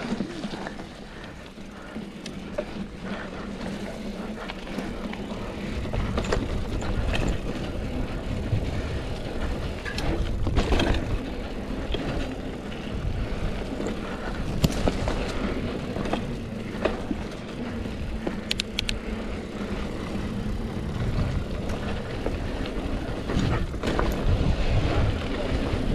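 Mountain bike being ridden on a dirt trail: a continuous rush of tyre noise with a low rumble that gets heavier about six seconds in, and scattered clicks and rattles from the bike.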